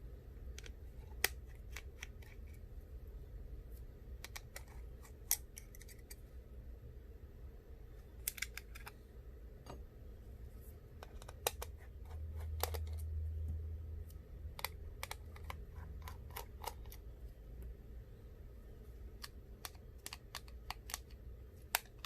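Small sharp clicks and taps of a precision screwdriver and tiny screws being removed from an opened iPhone and set down on a work surface, coming irregularly. A brief low hum swells a little past the middle.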